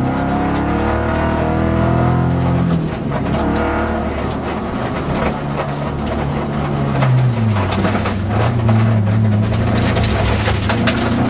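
In-cabin sound of a Peugeot rally car's engine under hard driving, its note rising and falling as the driver accelerates and lifts off. The pitch drops around three and seven seconds in and then climbs again. Frequent sharp knocks and rattles come from the car's cabin and body.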